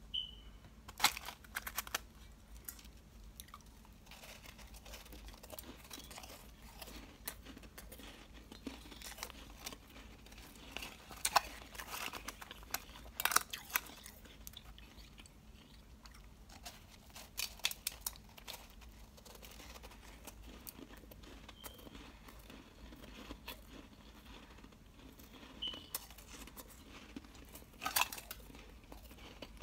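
Powdery ice crunching in short, scattered bursts with quiet stretches between.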